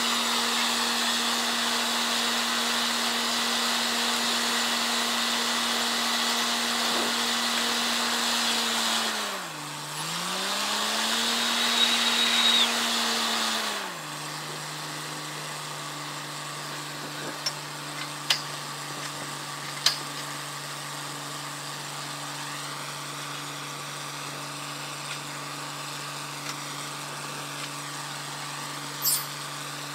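Truck-mounted borewell drilling rig running hard, its engine tone steady under a loud hiss of compressed air blowing dust and cuttings out of the bore. About ten seconds in the engine pitch dips and recovers; about fourteen seconds in the air blast stops and the engine drops to a lower, quieter steady idle, with a few sharp knocks after that.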